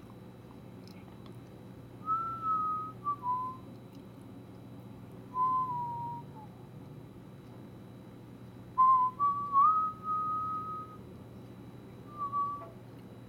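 A clear whistle that comes and goes in four separate phrases, each held for up to two seconds and stepping between a few pitches. A steady low hum lies under it.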